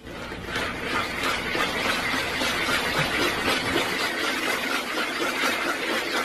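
A small plastic ball rolling round and round inside a circular plastic track toy, a steady rattling rumble.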